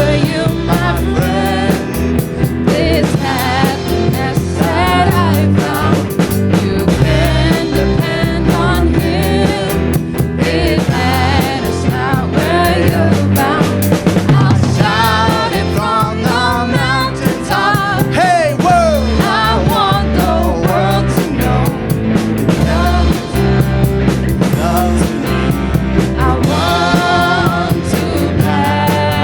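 Live band music: drum kit and bass keep a steady beat under a wavering melody line.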